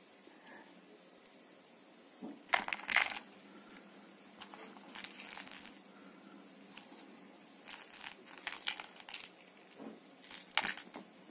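Rustling and scratching of a cat's claws and body on a woven fabric sofa cover as it grabs and wrestles a fur toy mouse, in irregular short bursts. The loudest come a little over two seconds in, with more scattered through the rest and a last flurry near the end.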